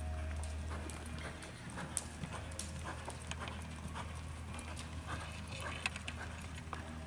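Hoofbeats of a reining mare loping on soft arena dirt: irregular muffled thuds and clicks, over a steady low hum.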